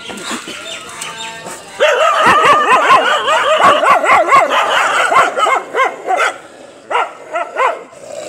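Several stray dogs barking and yelping over one another in a loud burst that starts about two seconds in and lasts a few seconds, then a few single barks.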